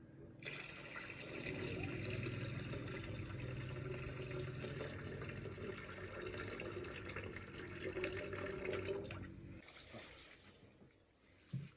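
Water running steadily for about nine seconds, then stopping, with one short low knock near the end.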